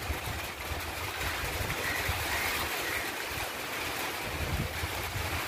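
Storm wind gusting against the microphone, making low buffeting rumbles over a steady rushing hiss; the gusts ease for a moment around the middle.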